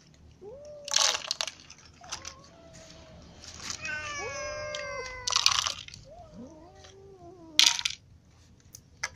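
Several cats meowing, each call rising and falling in pitch, with one longer drawn-out meow in the middle. Three short, loud rattles of dry kibble dropped by hand into plastic cups come about a second in, just past the middle and near the end.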